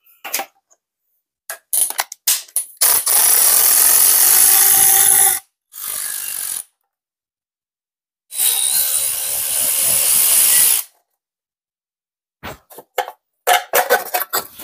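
Handheld cordless power tool run against the front of an engine block on a stand, in two long bursts of a couple of seconds each with a shorter, weaker one between them. Clicks and knocks of the tool and parts being handled come before and after.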